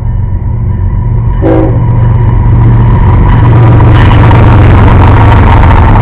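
CSX diesel freight locomotives passing close by: a short horn toot about 1.5 s in, then a steady low engine rumble and rising wheel and rail noise as the locomotives and boxcars go past.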